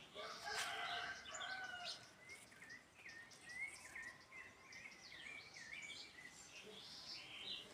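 Birds calling outdoors: a long call with several tones in the first two seconds, then a run of many short, quick chirps.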